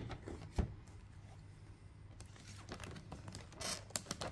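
Handling of a cardboard gift box with a clear plastic window: a single knock about half a second in, then faint scraping and crinkling of cardboard and plastic that picks up near the end as it is opened.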